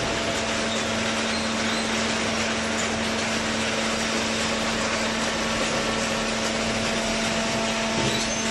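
Hydraulic cardboard baler's electric motor and pump running steadily: a constant hum over an even wash of mechanical noise.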